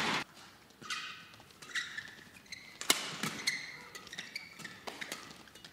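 Badminton rally: rackets strike the shuttlecock in a quick string of sharp hits, the loudest about three seconds in. Court shoes squeak briefly in between.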